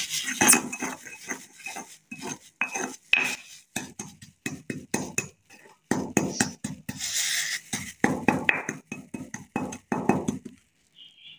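Pestle grinding and scraping a powder of sulphur and ammonium chloride around a mortar (kharal): quick, irregular scraping strokes that stop about a second before the end.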